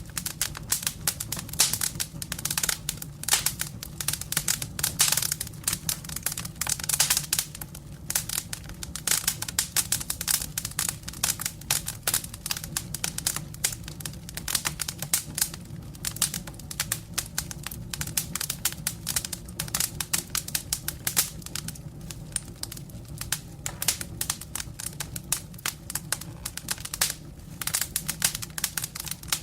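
Wood burning in a fireplace: dense, irregular crackling over a low steady rumble.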